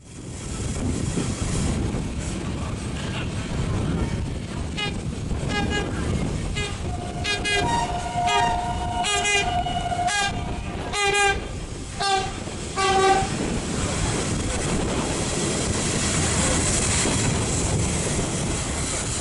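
Train horns trading a long string of short two-tone toots, with a few longer blasts, between about five and thirteen seconds in, as a Trenitalia Pop regional electric train and an E656 electric locomotive greet each other. The steady rumble of a train running on the rails carries on underneath.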